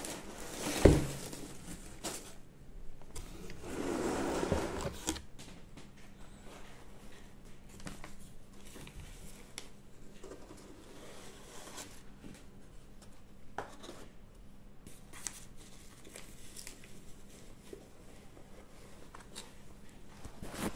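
Packing material rustling and crinkling as a box of egg cartons is unpacked by hand, with a sharp thump about a second in and a longer rustle a few seconds later, then scattered faint clicks and handling noises.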